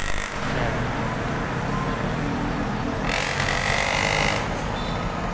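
Heavy city street traffic: a steady rumble of engines and tyres, with a brighter, hissing sound lasting about a second, starting about three seconds in.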